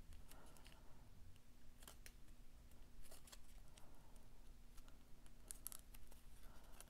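Faint rustling of cardstock with several sharp little clicks as a metal brad is worked through the paper pieces and its prongs are spread.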